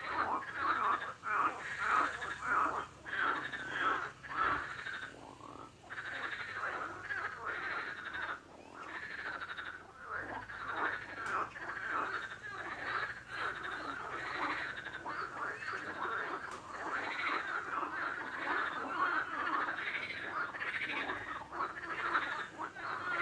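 A chorus of frogs croaking: many rapid, overlapping calls with no real pause, thinning briefly twice.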